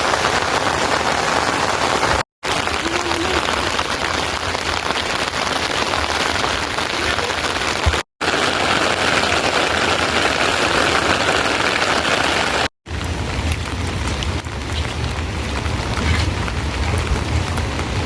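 Heavy rain falling steadily, a dense even hiss, cut off by three brief silent gaps. A low rumble joins in for the last few seconds.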